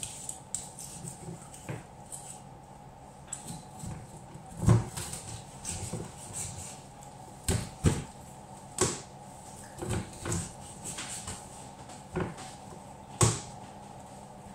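Kitchen knife chopping through raw chicken onto a plastic cutting board: irregular sharp knocks, some close together in pairs, over a faint steady hum.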